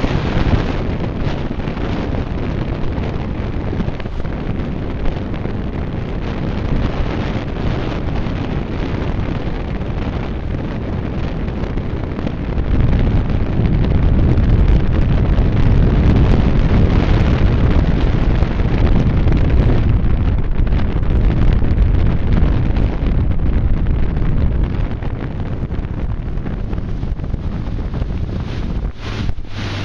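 Wind buffeting the microphone of a moving motorboat, a steady low rush with water noise from the run, growing stronger for about ten seconds in the middle.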